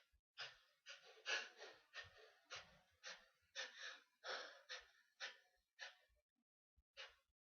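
A person's faint, short gasping breaths in quick succession, about two a second, with a short pause near the end, between the sneezes of a sneezing fit.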